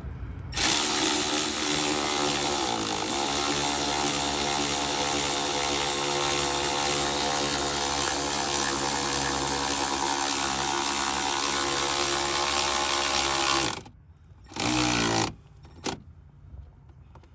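Cordless power tool's motor running steadily for about 13 seconds, driving a long bolt down, its pitch dipping briefly about three seconds in as it takes load. Then comes one short burst near the end, as the bolt seats all the way down.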